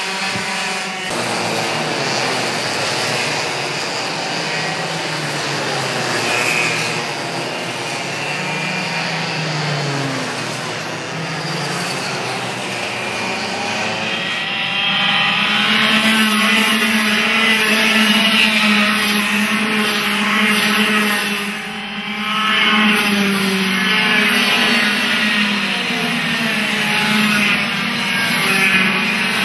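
Engines of several racing karts running at high revs as they pass, their pitch rising and falling. About halfway through the sound changes abruptly and a louder group of karts goes by.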